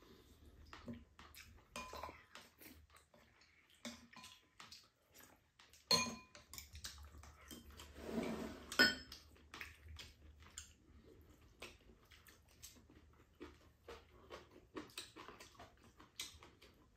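Metal chopsticks and spoons clinking and scraping against ceramic bowls during a meal: a steady scatter of small clicks with a few sharper, briefly ringing clinks.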